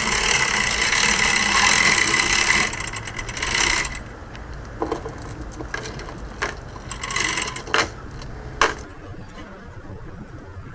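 Hand-crank boat trailer winch being cranked, its ratchet pawl clicking rapidly for the first three or four seconds. Then come a handful of separate sharp clicks and metal clanks.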